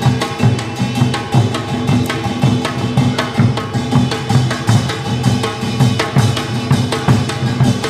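Korean percussion group drumming a steady, driving rhythm, with deep strokes on buk barrel drums and sharp stick clicks.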